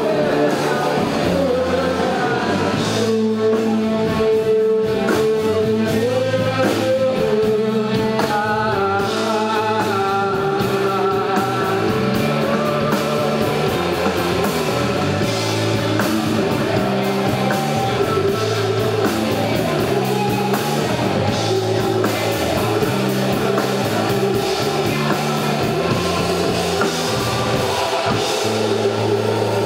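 Rock band playing: a singer over electric guitar and a drum kit.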